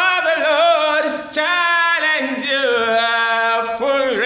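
A man singing a worship song unaccompanied, holding long notes with a wavering vibrato, with a short break for breath about a second in.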